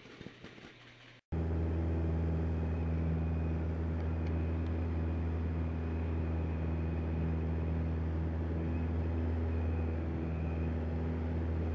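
Van's RV-4 light aircraft's piston engine and propeller droning steadily in flight, heard from inside the cockpit. It starts abruptly about a second in, after a moment of quiet.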